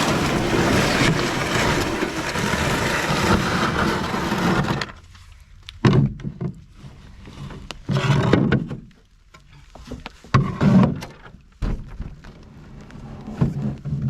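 Canoe hull scraping over rock as the canoe is pushed off the shore into the water, a long grinding scrape that rubs paint off the hull and stops abruptly about five seconds in. It is followed by scattered hollow knocks and thumps against the canoe.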